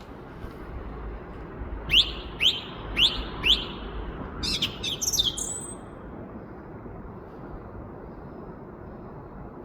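Song thrush singing: one short sharp note repeated four times, about two a second, then a quick twittering phrase, over a steady low background rumble.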